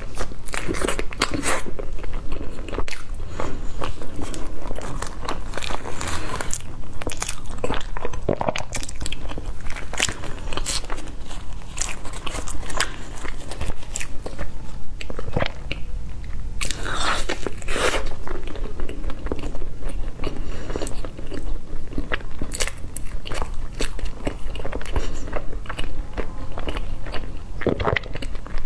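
Close-miked chewing and biting of a soft baked raisin cake: irregular wet clicks and smacks of the mouth, with the crinkle of a thin plastic cake liner being peeled back.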